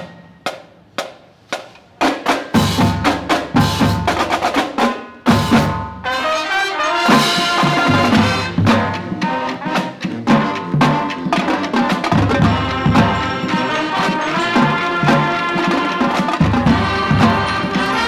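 Music with drums and brass. It opens with sharp taps about twice a second, and the fuller music comes in about two seconds in.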